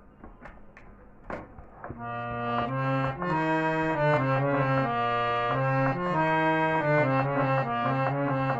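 Hand-pumped harmonium: a few sharp clicks, then about two seconds in it starts playing a tune of held reedy notes over a steady low drone.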